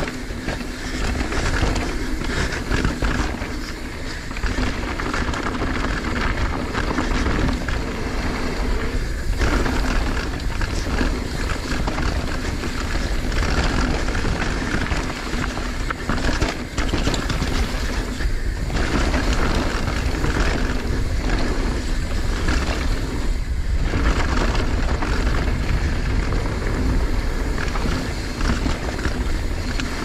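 Wind rushing over a helmet or chest camera's microphone as a downhill mountain bike rolls fast over a dirt trail, with many short knocks and rattles from the bike over rough ground.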